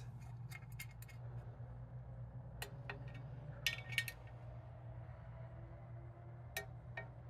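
Scattered light metallic clinks and ticks as a metal oil cooler heat shield is seated and its bolts are run down with a ratchet torque wrench, over a steady low hum. A short run of ticks comes about four seconds in, and single clicks come before and after it.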